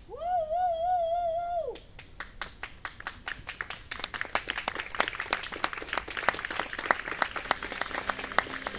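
A held, slightly wavering tone for about a second and a half, then an audience breaks into applause that builds and carries on.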